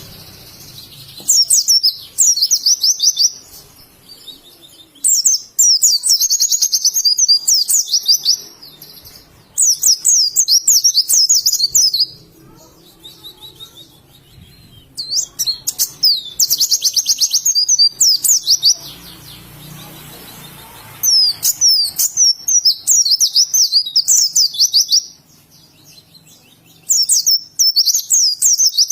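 White-eye (pleci) singing: phrases of rapid, high, warbling twitters, each two to three seconds long, repeated with short pauses between.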